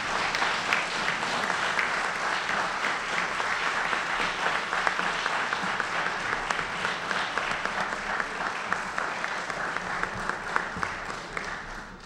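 Large audience applauding: many hands clapping densely and steadily, dying down near the end.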